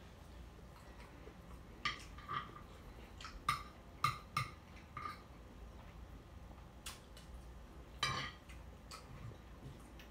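Quiet eating sounds: metal cutlery clicking and scraping on a plate, along with chewing. About eight short, sharp clicks are spread irregularly through it, the longest about eight seconds in.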